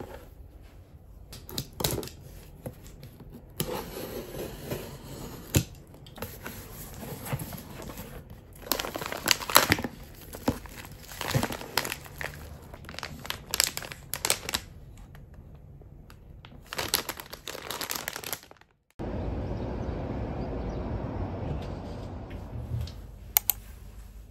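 Plastic food packaging crinkling and rustling as packets are handled inside an opened cardboard delivery box, with cardboard flaps and tape giving sharp rustles and tearing noises in irregular bursts. Near the end the rustling stops and a steady low noise takes over.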